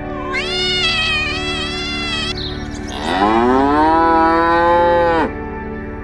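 A cat meows once, a drawn-out call of about two seconds; then, about three seconds in, a cow gives one long moo that rises in pitch. Steady background music plays underneath.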